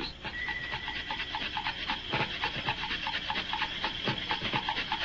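Factory production machinery running with a rapid, steady rhythmic beat of about five strokes a second.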